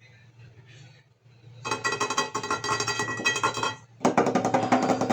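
Background music with plucked notes and percussion starting about a second and a half in, with a brief break partway through, after a quiet start with a faint low hum.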